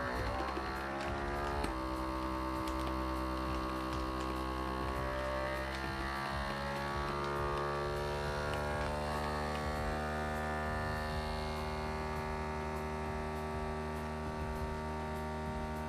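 FoodSaver FM5200 vacuum sealer's pump running as it draws the air out of a bag of sliced brisket: a steady motor hum that shifts a little in pitch in the first two seconds, then holds.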